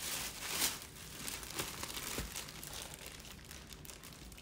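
Clear plastic poly bag crinkling as it is handled and pulled open, loudest in the first second, then lighter irregular rustles.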